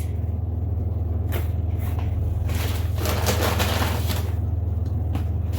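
Groceries being handled: a few light knocks, then a stretch of rustling in the middle, over a steady low electrical hum.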